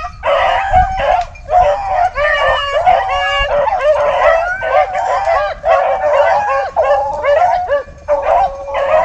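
A pack of rabbit hounds baying and howling in a continuous overlapping chorus, many voices at once: the pack is in full cry running a rabbit's trail.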